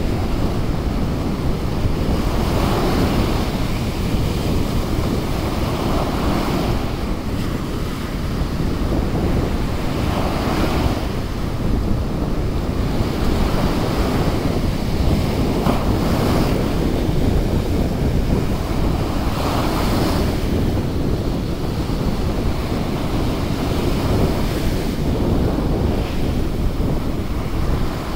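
Surf breaking on a sandy beach and washing up the shore, a steady rush that swells with each wave about every three to four seconds, with wind rumbling on the microphone.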